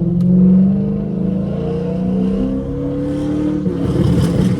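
Dodge Charger R/T's 5.7-litre HEMI V8 through a straight-piped exhaust with a burble tune: the engine note holds and then drops as the car comes off the throttle. From about three and a half seconds in, a run of irregular crackles and pops from the exhaust on deceleration.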